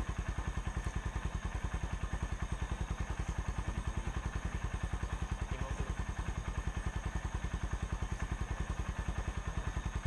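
Small engine idling nearby, a fast, even, low chugging that does not change.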